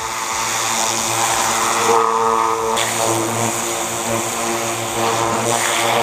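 Pressure washer running: the pump and motor give a steady drone while the water jet hisses hard against a supercharger case, blasting off degreaser and flaking paint.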